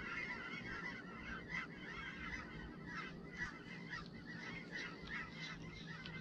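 A flock of birds calling all at once, faint, with many short overlapping calls in a steady stream.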